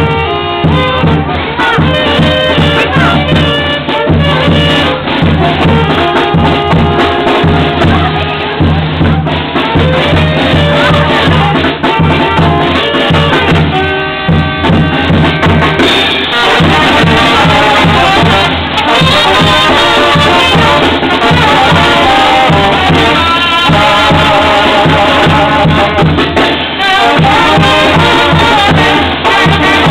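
Loud dance music with brass and a steady drum beat. The arrangement changes about halfway through.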